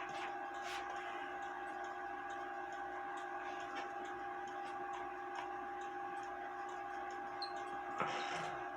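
Light, uneven ticks and clicks as screws are worked out of a wooden clock movement, over a steady hum. A short scrape comes near the end, with a few faint high squeaks.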